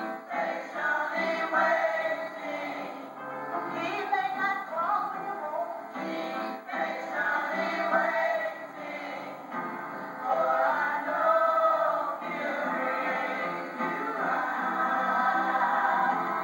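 Church choir singing a gospel song together, continuous full-voiced singing with the pitch moving through the phrases.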